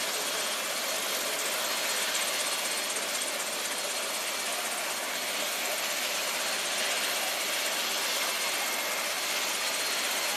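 Steady engine noise of vehicles idling, unchanging throughout with no sudden sounds.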